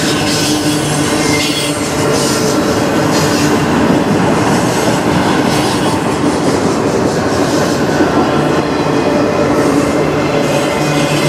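Autorack freight cars rolling by: a steady, loud rumble and rattle of steel wheels on rail, with a steady low hum running through it.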